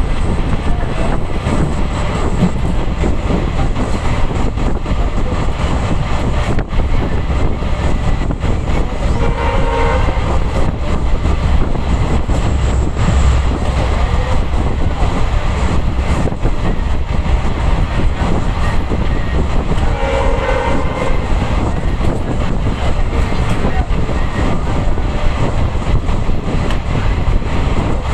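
EMD diesel locomotive's engine humming steadily under acceleration as the train runs at speed, with a continuous deep rumble from the running gear and coaches. Brief higher tones sound about ten and twenty seconds in.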